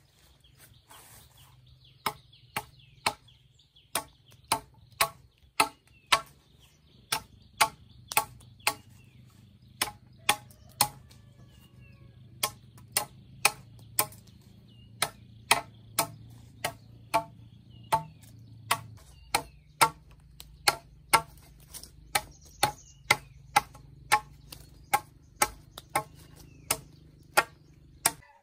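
Wood being chopped by hand with a bladed tool: sharp strikes about twice a second, each with a short ringing note, going on steadily.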